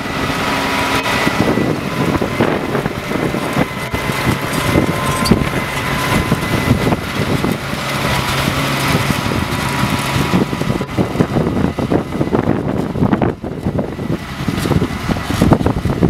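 Case IH 230 CVX tractor engine running steadily under load as it pulls a five-furrow reversible plough, mixed with a dense rumbling noise.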